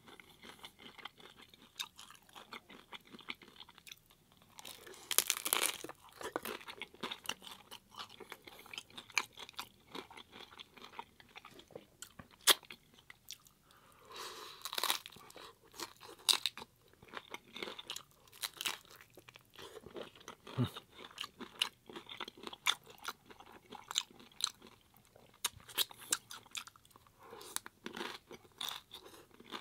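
Close-miked eating of hard-shell corn tacos: crisp shells crunching under the teeth, with steady chewing between bites. The loudest crunches come about five, twelve and fifteen seconds in.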